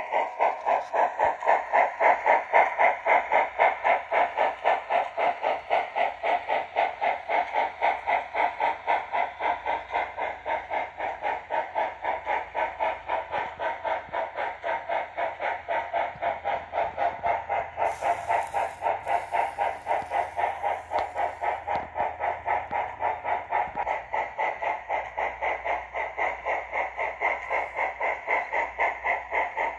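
Simulated steam-locomotive exhaust chuffing from a SoundTraxx WOW Sound decoder in an On3 model steam engine, heard through the model's small speaker. The beats are steady and even, about four a second, and a brief hiss comes in about two-thirds of the way through.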